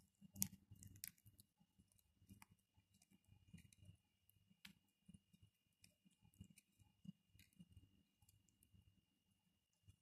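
Rose-ringed parakeets feeding from a bowl of dry nuts or seeds: faint, irregular clicks and crunches of beaks cracking food and tapping the bowl. The sharpest click comes about half a second in.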